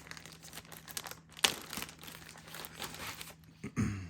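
Packaging being handled and opened: crinkling and rustling, with a sharp snap or click about a second and a half in.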